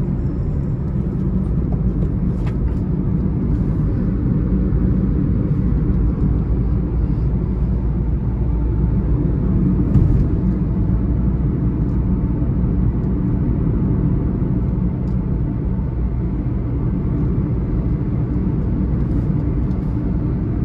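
Steady low road and engine rumble heard from inside the cabin of a car cruising on a highway, with one brief thump about halfway through.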